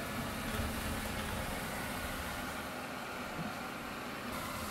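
Eufy Clean L50 robot vacuum running on a hard tile floor, its suction motor and brushes making a steady whir.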